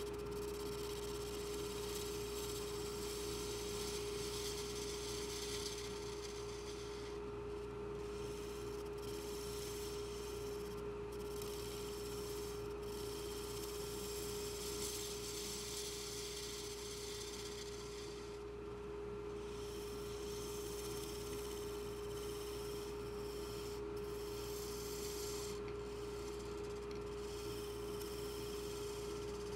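Wood lathe running with a steady motor whine while something is held against the spinning ash workpiece, making a hissing rub that breaks off briefly now and then.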